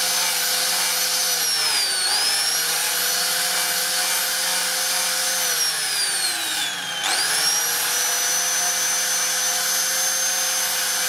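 Electric angle grinder with a sanding disc, running steadily while sanding a slingshot handle. Its whine dips in pitch twice as the disc is pressed into the work and the motor slows under load: briefly about two seconds in, then a longer slide down that snaps back up near the middle.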